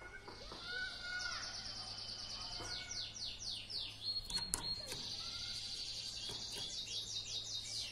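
Domestic canary singing a continuous song of rapid high trills and runs of quick falling notes, with a held steady whistle-like note about four seconds in.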